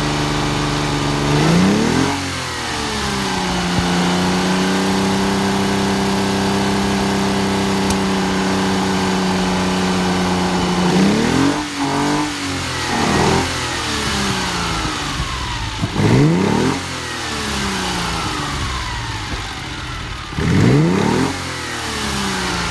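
A warm 1967 Fiat Dino's 2.0-litre V6 engine runs at idle. It is blipped once and held at a slightly higher steady speed for about eight seconds, then given four quick throttle blips, each revving up sharply and dropping back to idle.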